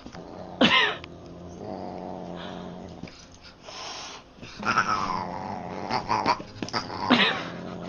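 Cat meowing and yowling in several drawn-out calls: a loud one about a second in, more around five seconds, and another near the end.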